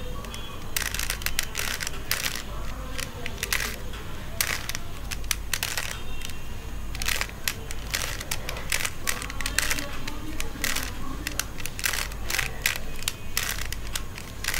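Plastic 3x3 Rubik's cube being turned by hand, its layers clicking and clacking in quick, irregular runs of turns.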